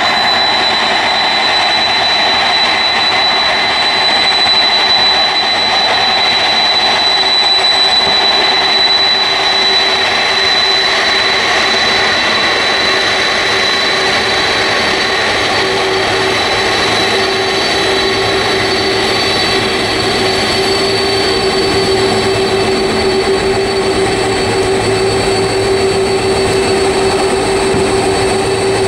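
Boeing 747 freighter's four jet engines running as it taxis onto the runway: a steady jet whine. A high whistle fades about halfway through, while a lower hum grows stronger.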